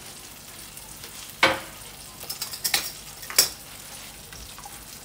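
Kitchen handling sounds at a stove: a sharp knock about a second and a half in, a few light clicks, then another knock, as a seasoning bottle and utensils are handled around a saucepan, over a steady low hiss.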